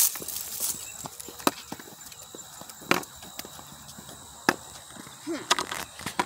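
Footsteps and scuffs on a woodland path: a sharp knock about every second and a half.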